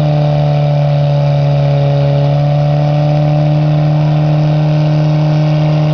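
Motor vehicle engine running at a steady speed, one unchanging held note.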